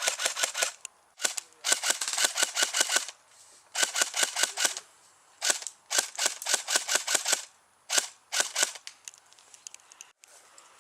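Airsoft electric guns firing on full auto in about six short bursts of rapid sharp cracks, roughly a dozen shots a second, with brief pauses between bursts.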